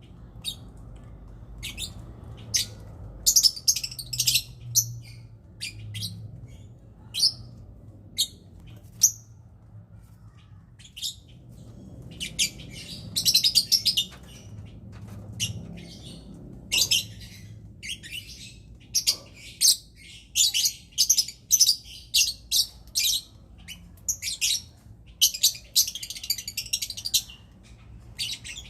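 Lovebirds chirping: short, shrill chirps in irregular rapid clusters with brief pauses between them, the calls lovebirds give when mating.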